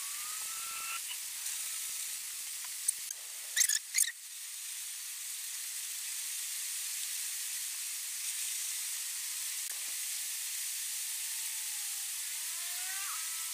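Steady hiss of wet concrete being scraped as a baluster is turned on a hand-cranked shaping jig against a profile template, with two short, louder scrapes about three and a half and four seconds in.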